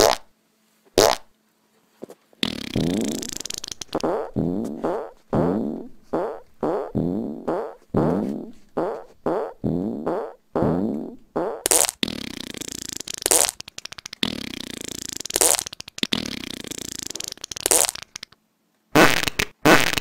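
Comedy fart sound effects. First comes a quick string of short farts, each dropping in pitch, about one and a half a second. These give way to longer, noisier farts and a last brief burst near the end.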